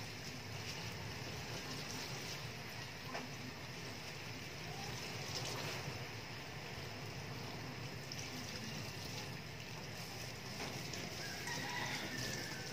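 Kitchen tap running steadily into a stainless steel sink, the water splashing over gloved hands as they squeeze and rinse an ink-soaked sponge pad.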